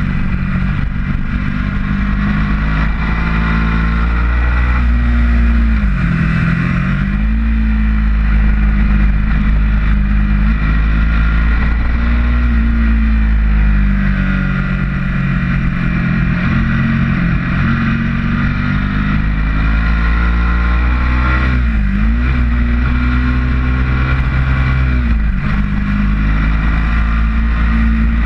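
Ducati motorcycle engine pulling hard at track speed, its revs dropping and climbing back about six seconds in and twice more near the end as the rider shifts down and drives out of corners. Heavy wind rumble on the bike-mounted microphone.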